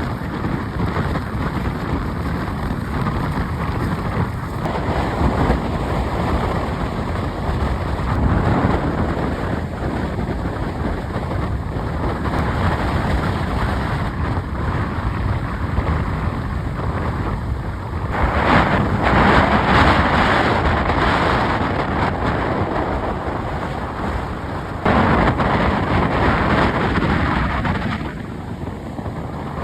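Strong wind of about 30 knots buffeting the microphone: a continuous rushing roar that surges in gusts, loudest at about two-thirds of the way through and again near the end.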